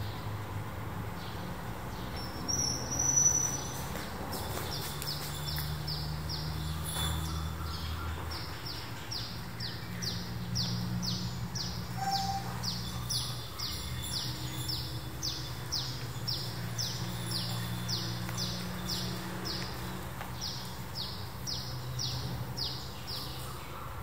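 A bird calling: a long, steady run of short, high falling chirps, about two a second, with one louder call about three seconds in. A low, steady hum lies underneath.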